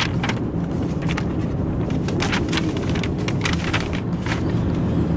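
Paper road map rustling and crinkling in short, irregular crackles as it is unfolded and handled, over the steady low rumble of a car driving.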